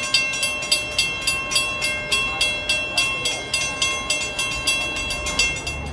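Railroad crossing warning bell ringing in quick, even strokes, about three to four a second, signalling that a train is approaching the crossing.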